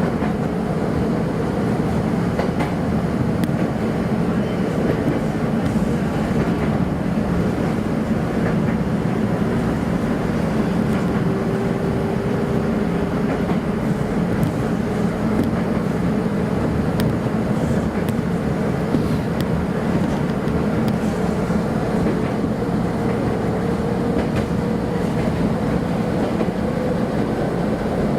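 Kobe Electric Railway train running steadily, with a continuous rumble, wheels clicking over rail joints and a faint motor whine that slowly rises in pitch in the second half.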